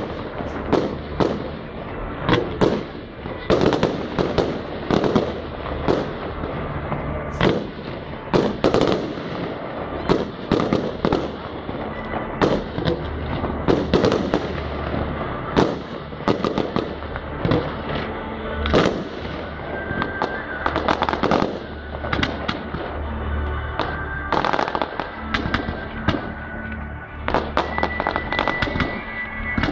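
Fireworks display: aerial shells bursting one after another, many sharp bangs and crackles, some in quick runs, with music playing underneath.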